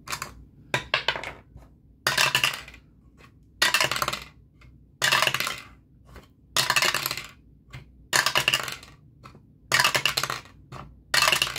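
A ten-sided die dropped through a dice tower again and again, clattering down inside it and rattling to a stop in the tray. It happens about seven times, roughly every one and a half seconds.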